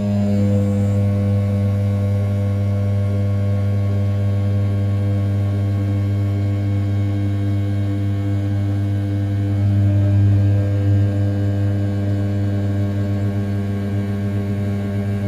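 500 W brushless spindle on an RZ420 desktop CNC mill running at 6000 rpm while an end mill roughs the outer profile of A7075 aluminium: a steady hum pitched near 100 Hz, a little louder about ten seconds in.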